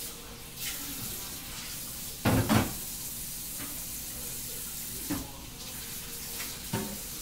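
Kitchen cooking sounds: a steady hiss with a loud clatter of cookware a little over two seconds in and two lighter knocks later.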